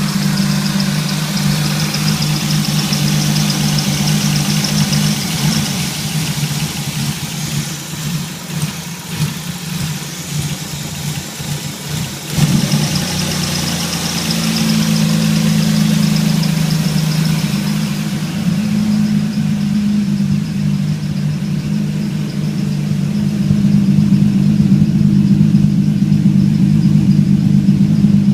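BMW E30 engine idling with a misfire. About halfway through it runs unevenly, its level dipping and wavering, then it picks up abruptly and idles more steadily. The owner ties the rough idle to the mass airflow sensor being plugged in.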